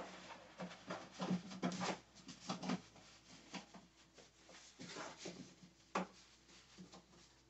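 Fabric rustling and rubbing in irregular bursts as a stretch skirt is pulled onto and arranged on a mannequin, with a sharper tap near the end.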